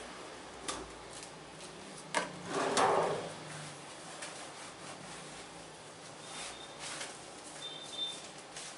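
Hands rubbing over skin in a massage, with a sharp click about two seconds in and a louder rubbing stroke right after it, then quieter strokes.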